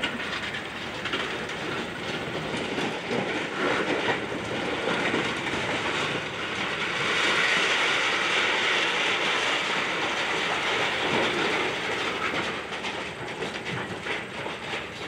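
Excavator demolishing a building: continuous crunching, scraping and clattering of debris over the machine's running engine, swelling louder for a few seconds about halfway through.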